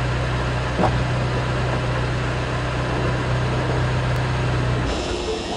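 A steady low buzz from the engine bay of a 2010 Mini Cooper S: the noise a faulty pressure converter (boost-control vacuum solenoid) makes after the engine is switched off, sometimes called mooing. It cuts off abruptly about five seconds in.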